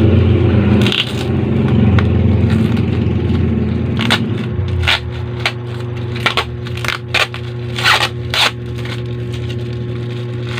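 Plastic packaging being handled and opened, crinkling and rustling in short sharp strokes in the second half, over a steady low hum that is loudest in the first half.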